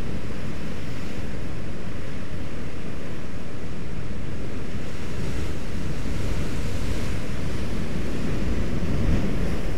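Heavy ocean surf breaking and churning against volcanic rock shoreline: a loud, steady wash of noise that swells slightly near the end as a bigger wave breaks.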